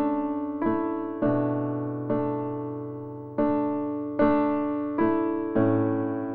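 Background piano music: a slow run of about eight notes and chords, each struck and left to fade.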